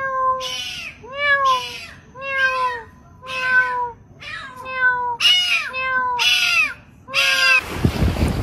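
Cat meowing over and over, about nine short meows, each rising and falling in pitch. Near the end it cuts to a rush of wind noise.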